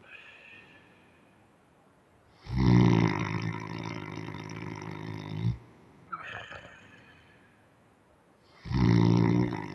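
A man's hard, loud snoring: two long snores about six seconds apart, the first starting about two and a half seconds in and the second near the end, with a quieter breath between them.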